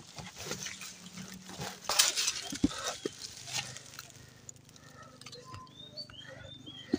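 Rustling and knocking of a shouldered bundle of cut firewood branches as the carrier walks through brush under the heavy load, with a low sustained vocal hum of strain from him. A few short high chirps come in the second half.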